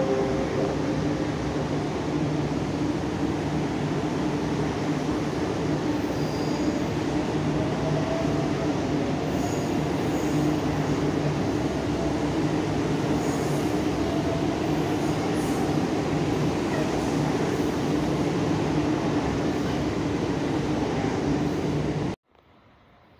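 Electric express train running past along the platform: a steady rumble of wheels and running gear with a low hum. It cuts off suddenly about 22 seconds in.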